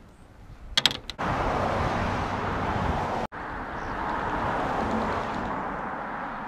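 A few sharp clicks about a second in as the latches of a drone's hard carrying case are snapped open, then a steady rushing noise.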